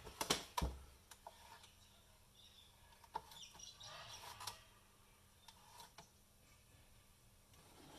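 Light clicks and knocks of the plastic housing and parts of a partly dismantled coffee grinder being handled, a cluster of sharp clicks in the first second, then scattered faint ticks and rustling.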